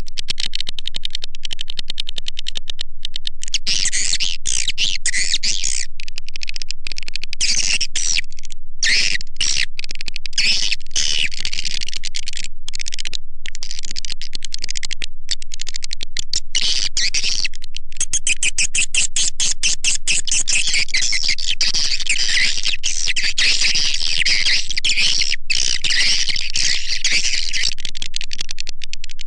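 Edible-nest swiftlet call recording ('suara panggil walet'): dense, high-pitched chirping and twittering with short breaks, growing denser about two-thirds of the way in. It is a lure call played to draw swiftlets into a swiftlet house.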